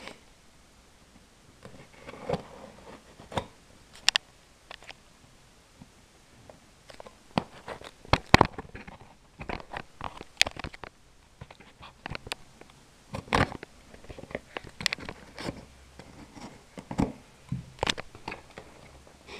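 Hands opening a sealed cardboard parcel: scattered scrapes, crinkles and sharp clicks of the packaging being pulled and torn.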